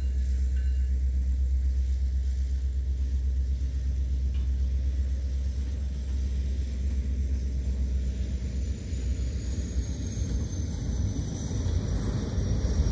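Freight train rolling past: steady low rumble of the Norfolk Southern SD70ACe diesel locomotive and its boxcars on the rails. A faint high whine slides slowly lower in pitch in the second half.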